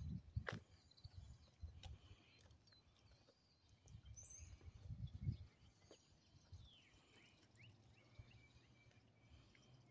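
Faint outdoor ambience: scattered faint bird chirps, with a few low rumbles on the microphone, the loudest about five seconds in, and a sharp click about half a second in.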